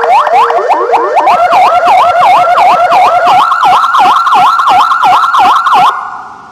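Sirine S6 Double Sound 200-watt electronic siren sounding two tones at once: fast rising whoops about four a second, switching about a second in to an up-and-down wail about two and a half a second. It cuts off suddenly near the end.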